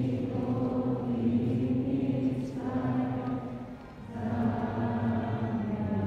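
A group of voices singing long held notes together, with a short break a little before the end.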